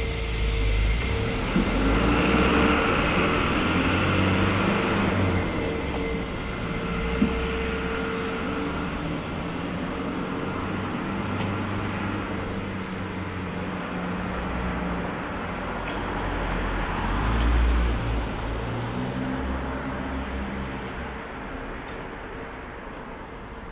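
Motor vehicle traffic on a city street: engine rumble from passing vehicles swells a couple of seconds in and again about two-thirds of the way through, over a steady hum.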